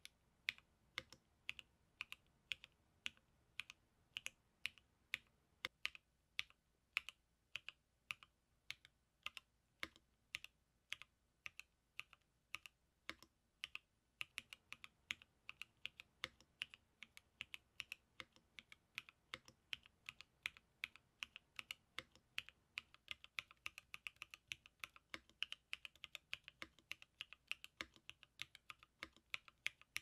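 Typing on a Tempo by Mode custom mechanical keyboard with Popu linear switches, a POM plate and ABS/PBT Anthracite keycaps: a steady run of keystrokes. The keystrokes are spaced out at first and come faster and denser from about halfway.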